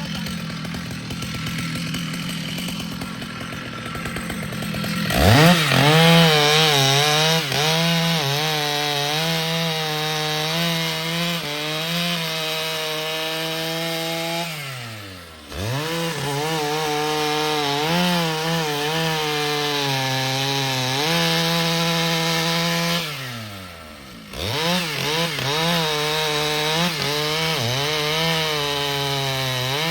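Stihl two-stroke chainsaw running softly, then opened to full throttle about five seconds in and cutting wood, its pitch wavering under load. Twice the revs drop away briefly and it winds back up into the cut.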